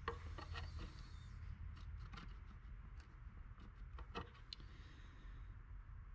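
Faint clicks and light scraping of circuit boards being handled: a Moates Quarter Horse tuning module pushed onto and lifted off a Ford EEC-IV engine computer's board, with a low steady hum beneath. A few sharper clicks stand out, the clearest about four seconds in.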